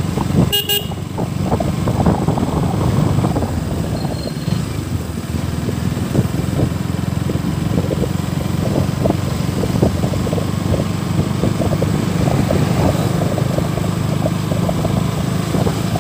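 KTM Duke motorcycle's single-cylinder engine running steadily while riding at town speed, with wind and road noise. A short horn toot about half a second in.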